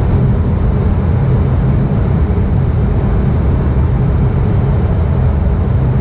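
ATR 72's turboprop engine and propeller running, heard from inside the passenger cabin as the plane rolls along the runway after landing. A steady, loud noise with a low, even hum underneath.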